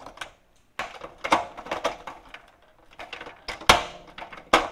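Plastic clicks and knocks of an LED tube being pushed up into a fluorescent fixture's end sockets and twisted into place, with a sharp knock about three and a half seconds in and another near the end.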